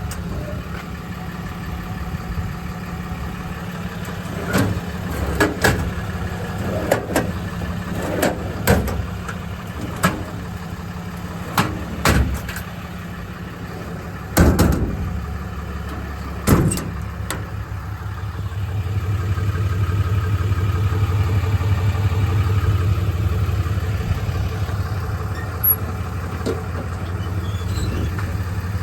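Ram 5500's 6.7 L Cummins turbo-diesel idling steadily, with a string of sharp knocks and clunks over several seconds. Later the low engine hum grows louder for a few seconds, then eases back.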